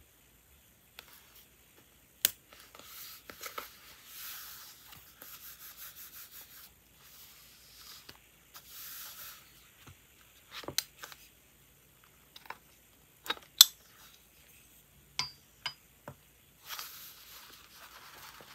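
Close-up paper sounds from decorating a journal page: fingers rubbing and smoothing stickers and washi tape down onto the paper, in several soft scratchy stretches. Scattered sharp taps and clicks come between them, the loudest about thirteen and a half seconds in.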